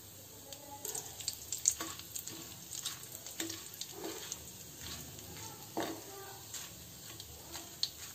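Whole spices and cumin sizzling gently in ghee in a clay pot, with a metal spoon stirring and scraping against the pot and scattered small pops and clicks. The flame is low, so the cumin has not yet started to crackle.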